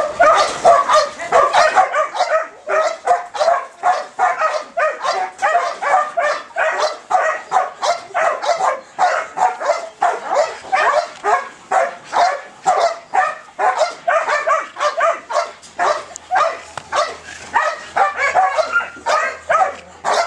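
Belgian Malinois barking without pause in rapid, high-pitched barks and yips, about two a second: the excited demand barking of a dog in high ball drive, lunging for a ball on a rope.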